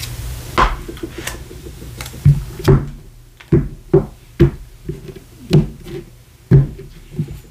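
Tarot cards being shuffled, the rustle stopping about half a second in. Then about ten sharp, irregularly spaced knocks of the deck and cards on the table.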